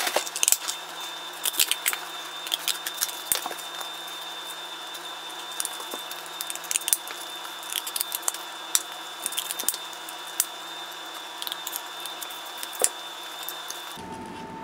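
Scissors cutting through cardboard: irregular crisp snips and crunches as the blades close on the board, over a faint steady high-pitched whine.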